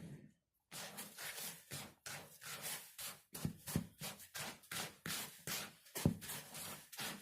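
Hands mixing coarse semolina and sugar in a bowl: a dry rustling and scraping of the grains in repeated strokes, about two or three a second, starting a little under a second in.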